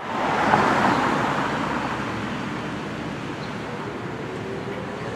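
Federal Thunderbolt 1000 warning siren starting its test: a loud rushing noise, strongest in the first second, with a faint low tone that begins to rise near the end as the siren winds up.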